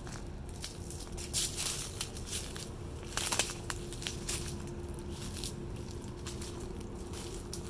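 Footsteps crunching through dry fallen leaves and twigs, in irregular steps with louder crunches about one and a half and three and a half seconds in.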